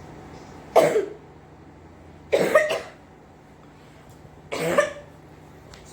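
A woman coughing three times, about two seconds apart, the middle cough a quick double. The coughing is put on for a prank, made to pass for someone coughing up blood.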